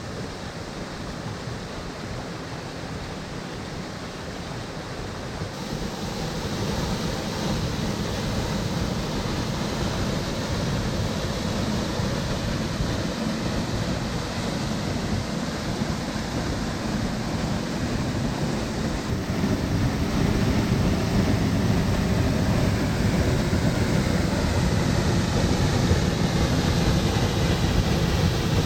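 Waterfalls of the Flumen river rushing steadily. The roar gets louder in two steps, about a fifth of the way through and again about two-thirds through.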